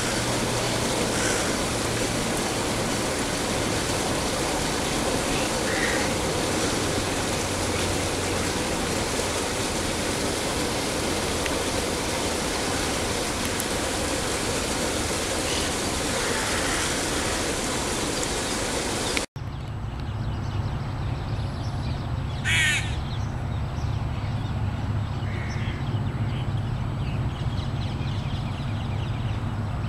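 A steady rushing noise for most of the first two-thirds, cut off suddenly; then a low steady rumble with one loud bird call a few seconds after the cut and a fainter short call a few seconds later.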